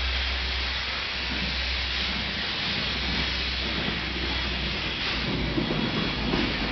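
Train running past: an S400-class diesel locomotive hauling steam locomotive CK124, a steady rushing rail noise over a low drone. The rumble grows heavier from about five seconds in.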